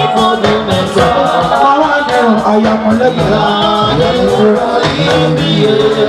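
Music with a steady beat and singing.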